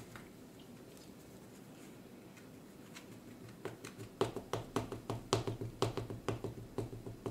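Quiet room tone, then from about four seconds in a run of quick, light taps, roughly four a second, from hands fidgeting on a tabletop.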